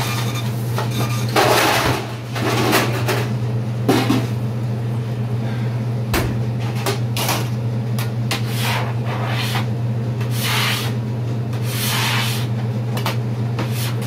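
Repeated short scraping strokes of a hand scraper across a plastic cutting board, clearing off brisket scraps, over a steady low hum.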